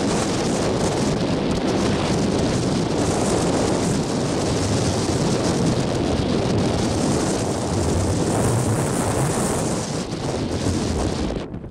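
Wind buffeting the camera microphone: a steady, loud rushing noise.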